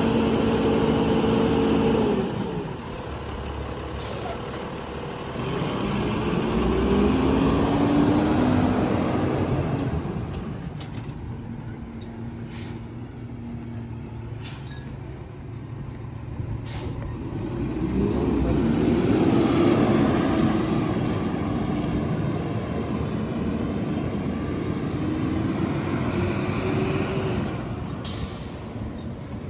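Lodal split-body side loader garbage truck: the engine holds a steady raised speed for the first two seconds, then drops back. The truck then drives off, its engine rising in pitch three times as it works up through the gears, with short hisses of air brakes along the way.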